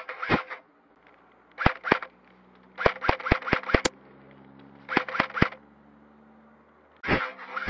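Airsoft guns firing in short volleys of sharp shots: two, then two, then about six rapid ones, then three, then two more near the end, with short pauses between.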